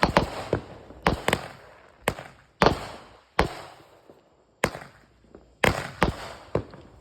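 Consumer fireworks going off: about a dozen sharp bangs at uneven intervals, each with a short echoing tail.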